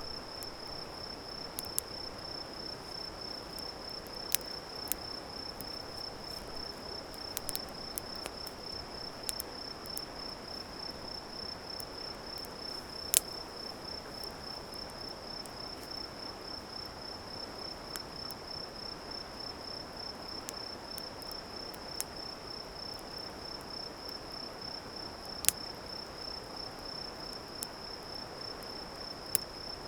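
Crickets trilling steadily at a high pitch, with sharp pops and crackles from a wood campfire scattered throughout, two of them much louder, near the middle and near the end.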